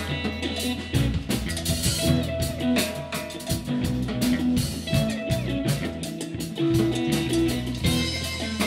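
Live rock band playing: electric guitars over a drum kit, with a sustained low line underneath.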